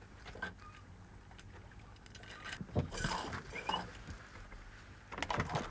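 Fish being handled and sorted by hand in a plastic fish crate: scattered wet slaps and knocks, turning into a quick run of small clicks and rattles near the end.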